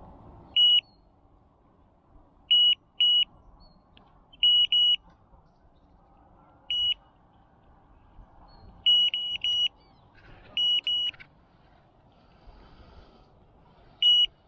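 Electronic carp bite alarm beeping: about a dozen short, high single-pitched beeps at irregular spacing, some coming in quick runs of two or three.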